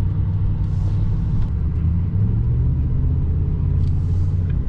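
Steady low rumble of a vehicle's engine and road noise, heard from inside the cab while driving. The engine note rises slightly about two seconds in.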